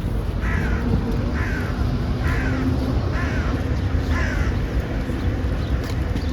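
A crow cawing five times, about once a second, each call falling in pitch, over a steady low rumble.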